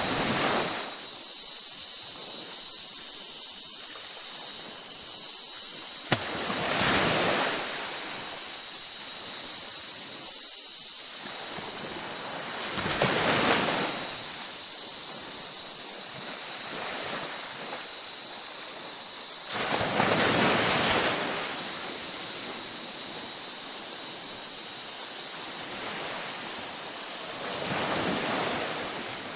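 Ocean waves breaking on a beach, a wave surging in and washing out about every six to seven seconds, five times, over a steady high hiss.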